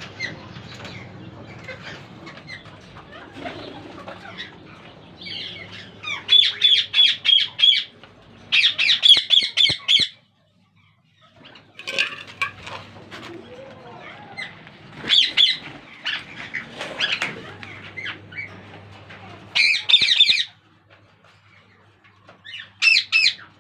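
Ringneck parakeets in a cage giving loud bursts of harsh, rapidly repeated squawks, about five bursts of one to two seconds each, with quieter scratching and wing flapping in between.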